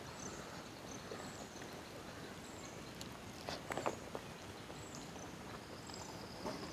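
Faint outdoor ambience with short, high chirps recurring about once a second, from small animals such as birds or insects. A few soft clicks come a little past halfway.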